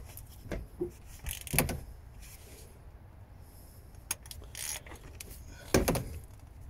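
Scattered metal clicks and scrapes of an oil filter being worked loose by hand, with a louder knock about six seconds in.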